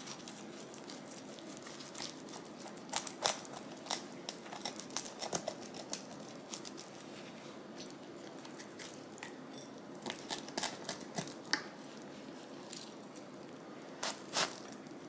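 Faint, scattered clicks, scrapes and crinkling from a freshly baked pizza being handled and cut on the table, in short clusters with quiet stretches between them.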